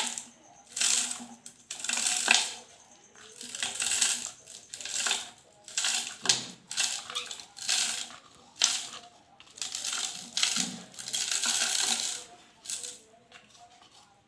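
Dry sand poured into a plastic bottle in a series of short hissing, rattling pours, roughly one a second, with one longer pour about three quarters of the way through.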